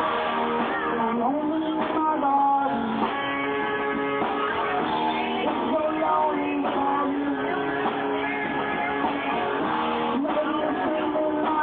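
Live band music, guitar-led, recorded with poor, muffled sound.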